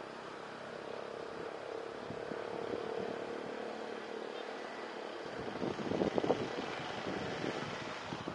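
Road traffic passing close by, motorcycles and a small truck, over a steady hum, with the loudest pass about six seconds in.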